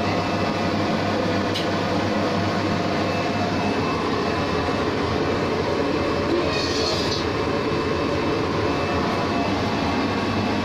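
Air compressor running steadily with a low hum, supplying air to a pneumatically driven screen printing machine. A short high hiss comes about six and a half seconds in.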